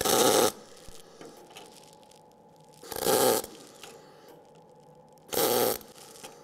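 Eastwood MIG 175 welder laying three short tack welds on sheet steel. Each arc is a noisy burst of about half a second, the bursts about two and a half seconds apart.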